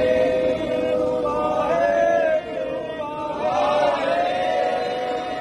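Sikh devotees chanting together in unison, many voices holding long notes that slide up and down in pitch. The chant breaks briefly about two and a half seconds in, then a new phrase begins.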